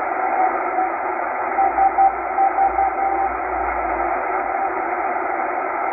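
Weak Morse code channel marker from maritime coast station SVO, received in upper sideband on a shortwave portable. A single steady beep keys on and off in dots and dashes over a bed of static hiss, and is strongest about two seconds in.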